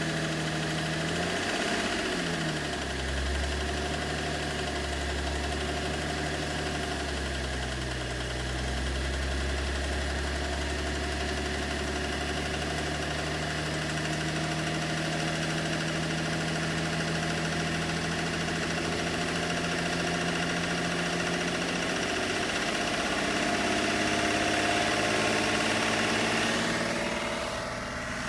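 BMW 730d's M57 three-litre straight-six turbodiesel idling, its engine note shifting a few times and dropping near the end. The engine has an intermittent mysterious knock whose cause the owner is trying to find.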